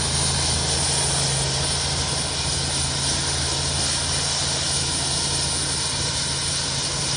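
Helicopter running steadily: an even, unbroken drone with a thin high whine above it.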